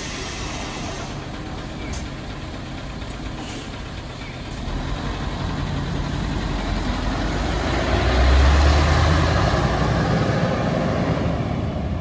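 Kagoshima Kotsu route bus closing its door in the first few seconds, then its diesel engine revving as it pulls away from the stop. The engine grows louder about halfway through and is loudest with a deep rumble around two-thirds of the way in.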